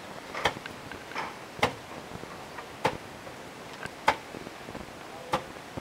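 Heavy wooden pestle pounding into a carved wooden log mortar: a dull knock about every second and a quarter, five strokes in a steady rhythm.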